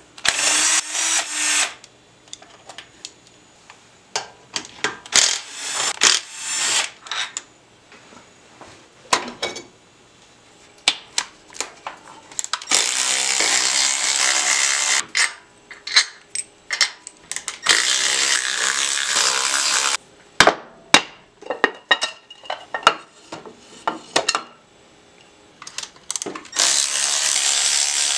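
Cordless power tools, a driver and a cordless ratchet, run in about five bursts of one to three seconds each as they back out cover bolts on a Harley-Davidson Twin Cam top end. Sharp metal clinks and knocks from bolts and parts come between the runs.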